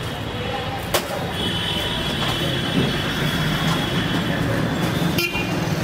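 Steady traffic rumble, with a sharp click about a second in and a thin, high, steady whine from about a second and a half in until shortly before the end.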